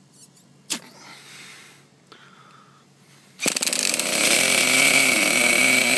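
A nitro RC engine being spun over by an electric starter box: a sharp click less than a second in, then about three and a half seconds in a loud, steady whirring of the starter cranking the engine, which does not catch — a hard start.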